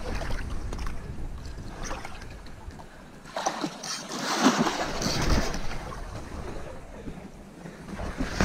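A large hooked fish thrashing and splashing at the water's surface in the shallows at the bank, loudest in a burst of splashing from about three to five and a half seconds in.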